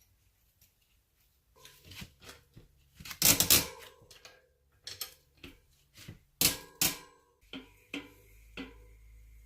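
Bicycle cassette cogs being handled and slid onto the hub's freehub body: a series of metallic clinks and clatters with short ringing, loudest about three and a half seconds in.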